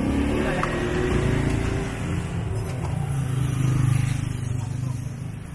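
Street traffic: a motor vehicle engine running close by, growing louder to a peak about four seconds in, then fading.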